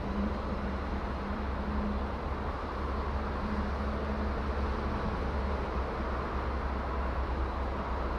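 Steady low rumble and hiss of outdoor background noise, with a faint hum that comes and goes.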